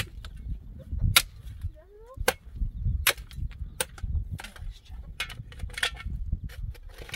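Metal shovel striking and scraping stony, rocky ground while digging, a series of sharp hits about once a second at an uneven pace.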